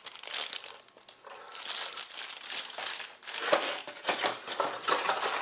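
Packaging being handled and crinkled, a dense irregular crackling that goes on through most of the stretch.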